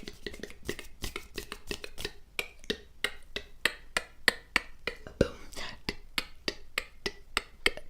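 A quick, irregular series of crisp clicks and taps, about three to four a second, made close to the microphone for ASMR.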